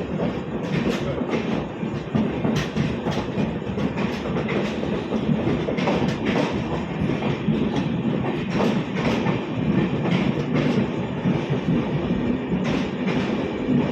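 Train running along the track: a steady rumble with repeated clacks of the wheels over rail joints.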